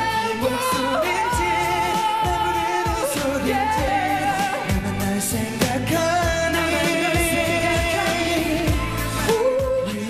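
Male voice singing a K-pop song into a handheld microphone over a backing track with drums, holding some notes for a second or more.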